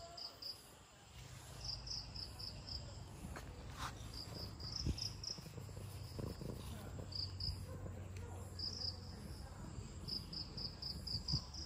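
Insects chirping in short trains of quick, high pulses, repeating every second or so, over a steady low rumble.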